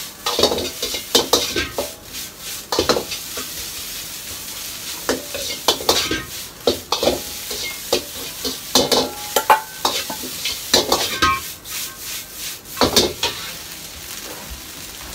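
Pineapple fried rice being stir-fried in a wok: sizzling hiss under the irregular clangs and scrapes of a metal utensil striking and stirring against the wok as the rice is tossed.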